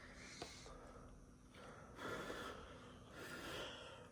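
A person's faint breathing, two soft breaths about a second apart.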